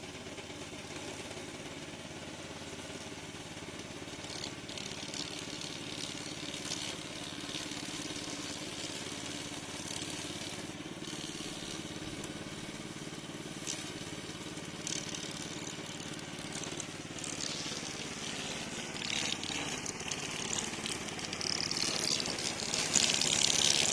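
Remote-control tracked lawn mower running steadily, growing louder near the end.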